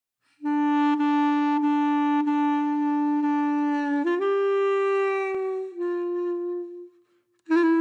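Background music: a single woodwind instrument playing long held notes. One steady note lasts about three and a half seconds, then the melody steps up, steps back down, and fades out near the end.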